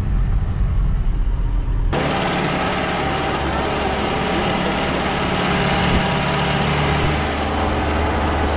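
Jeep engine running while driving along a rough rural road, heard from the driver's seat. About two seconds in, the sound changes abruptly from a dull low engine hum to a brighter, steady mix of engine and road noise.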